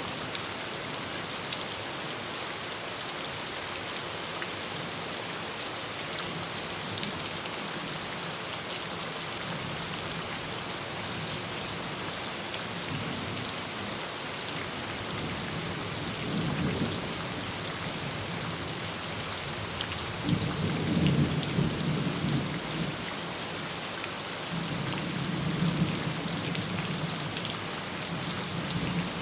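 Heavy rain falling steadily on a tin roof, with low rumbles of thunder rolling in a little past halfway, louder about two-thirds of the way through, and again near the end.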